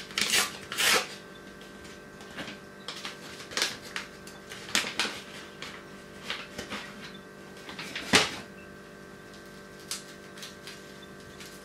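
Plastic seasoning packet crinkled and torn open by hand: irregular rustles and crackles, the sharpest about eight seconds in, over a faint steady hum.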